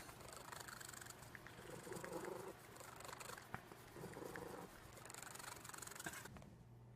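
A cat purring, faint, swelling and easing roughly once a second with its breathing, and stopping shortly before the end.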